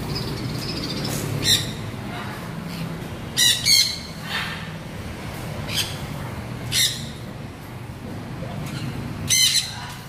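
Caged parrots squawking: several short, harsh calls at irregular intervals, two in quick succession about a third of the way in and another close pair near the end.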